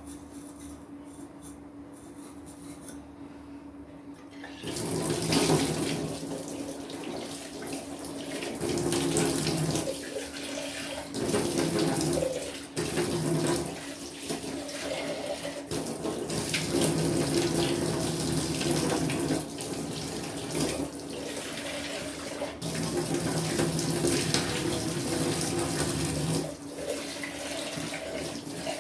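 Water running from a kitchen tap into the sink, starting about four seconds in and swelling and dipping again and again as things are washed under the stream.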